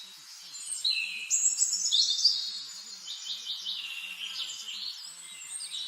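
Several songbirds singing at once, a dense overlap of chirps and trills that is loudest about one to three seconds in.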